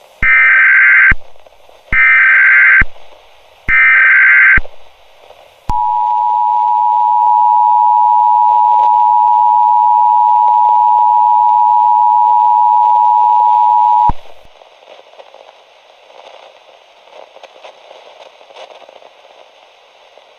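Emergency Alert System test tones: three one-second bursts of the digital SAME header, then the steady two-tone attention signal (853 and 960 Hz), held about eight seconds and cut off sharply. Faint hiss follows.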